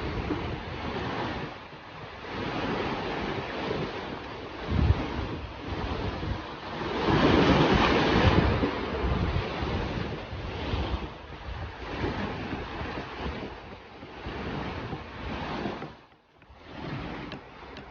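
Ocean waves breaking and washing up a beach, swelling and falling, with wind buffeting the microphone; the biggest surge comes about halfway through.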